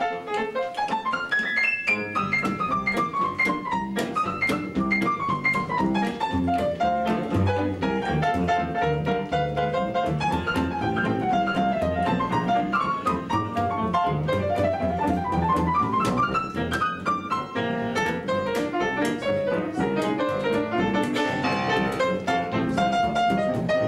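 Live jazz piano on an upright piano, with fast runs of notes sweeping up and down the keyboard over a double bass line.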